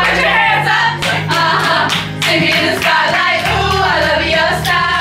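Karaoke: a group of young women singing along loudly to a pop backing track with a steady beat and bass, some of them clapping.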